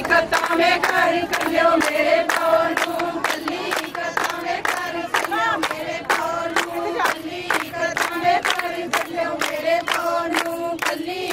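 Group of women singing a Punjabi folk song together, with quick, steady hand clapping keeping the beat, as in giddha.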